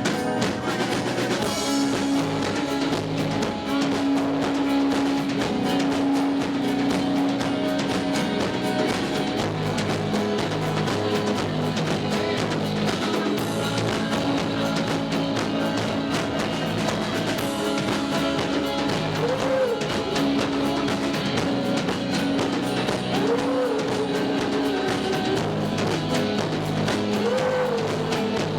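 A live rock band playing, with drum kit and guitars, through a poor-quality recording.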